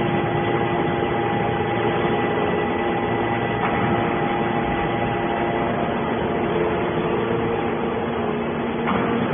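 Hydraulic can baler's power unit running with a steady mechanical hum, with a faint knock about a third of the way in and another near the end.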